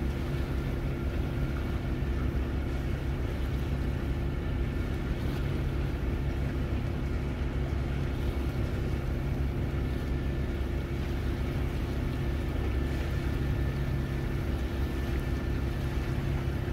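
Boat engine running steadily: a continuous low drone with a few steady hum tones and a faint whine above it.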